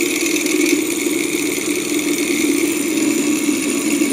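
Small flame-heated Stirling engine running steadily, its propeller spinning fast with a steady whirring hum.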